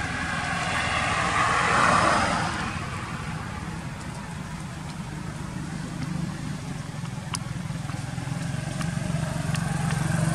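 A motor vehicle passing on a road, swelling to its loudest about two seconds in and fading away, followed by a low engine hum that grows louder near the end. A few faint clicks sound in between.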